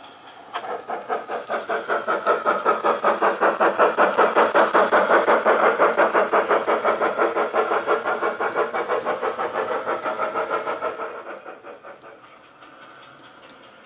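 Sound decoder in a Hornby OO gauge 'Hogwarts Castle' model steam locomotive, playing fast, even exhaust chuffs through a speaker in its tender as the train runs past. The chuffing starts abruptly about half a second in, is loudest in the middle and fades away near the end.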